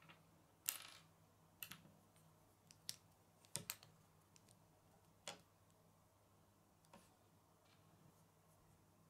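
Small plastic Lego pieces clicking as they are handled, picked off a wooden table and pressed together: about eight sharp clicks at irregular spacing, the loudest under a second in and a close pair around three and a half seconds in.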